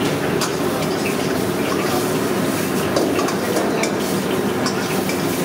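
Paneer 65 sizzling in a wok over a gas burner, with a steady rush of noise and scattered ticks and clinks from the metal ladle stirring and scraping in the wok.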